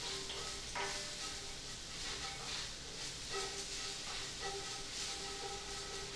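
Soft background music with held notes over a faint steady sizzle of minced aromatics frying in oil in a cast iron skillet as they are stirred with a wooden spoon.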